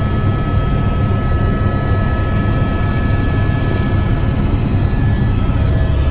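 Helicopter in flight heard from inside the cabin: a loud, steady low rumble from the rotor and engine, with a few thin, steady high tones above it.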